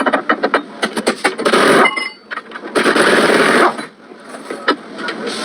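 Rapid, irregular mechanical rattling and knocking in bursts, with a longer noisy stretch a little after the middle and a single sharp knock near the end.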